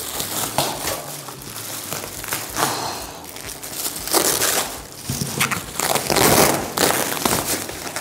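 Packaging being opened by hand: irregular crinkling and rustling of plastic and cardboard, with several louder handling bursts.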